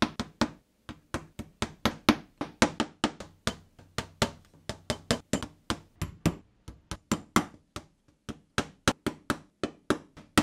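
Small hammer tapping horseshoe nails into a wooden work board with rapid, sharp strikes, about four to five a second, broken by a couple of short pauses.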